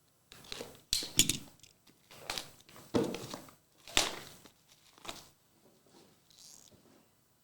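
Trading cards and their packaging handled on a table: a string of short rustling, crinkling and tapping noises, about one a second.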